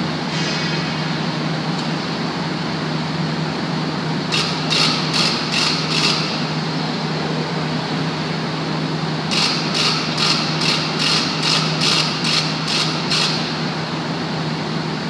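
Steady machinery drone and low hum of a hot-dip galvanizing plant. It is broken twice by evenly spaced high beeps, about two and a half a second: a run of about five a few seconds in, and a run of about ten in the second half.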